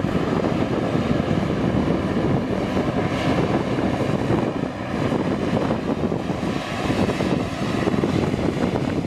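Bombardier Dash 8 Q400 turboprop taxiing, its two Pratt & Whitney PW150A turboprop engines and propellers running with a steady low rumble.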